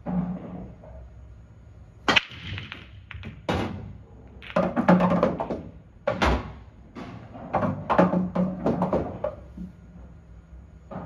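Break-off shot on an English pool table: a sharp crack of the cue ball smashing into the rack about two seconds in, then several seconds of balls clacking against each other and knocking off the cushions, with duller thuds among them.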